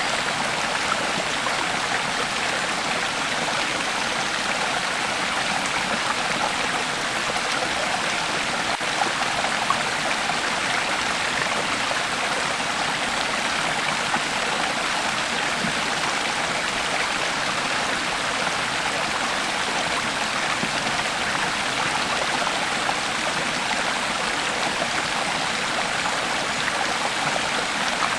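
Creek water flowing steadily over stones in an even rushing babble, with small splashes here and there.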